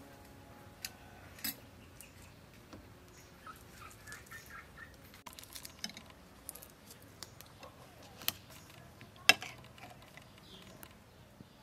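A metal spoon clinks against a ceramic bowl, and fingers handle and peel cooked shrimp. The sound is scattered soft clicks and scrapes, with a sharp clink about nine seconds in.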